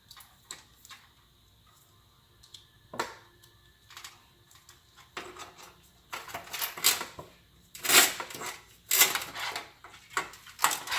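Hands fitting a fan's Molex power connector and handling cables inside a computer case: scattered plastic clicks and taps, then from about six seconds in, denser, louder rustling and scraping of cables and connectors.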